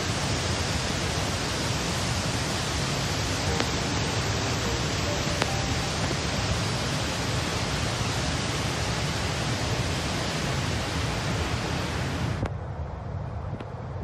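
Nakano Shirataki waterfall rushing, a steady dense noise. Near the end it suddenly turns duller and quieter, its upper part cut off, leaving a low rumble.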